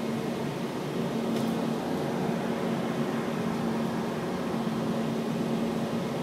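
Steady cabin noise of a Portland Aerial Tram car travelling along its cables: an even rushing sound with a low hum held at one pitch, heard from inside the cabin.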